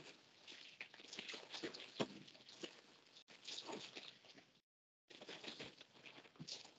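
Brown paper envelope rustling and crinkling as a box is worked out of it, faint and irregular, with small crackles. The sound cuts out completely for about half a second a little past the middle.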